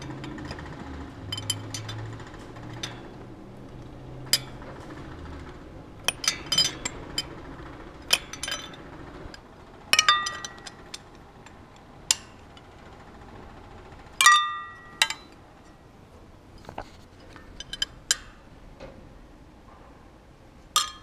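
Steel wrench clinking against the cylinder hold-down nuts and pal nuts on a Franklin 165 aircraft engine, as the nuts are tightened and set. It is a scattered run of sharp metallic clinks, some ringing briefly; the loudest come about ten and fourteen seconds in.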